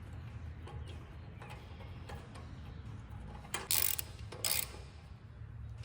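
Ratchet wrench clicking while a spark plug is run into the cylinder head of a Kawasaki FR691V engine. There are faint scattered clicks, with two short louder bursts of ratcheting at about three and a half and four and a half seconds in.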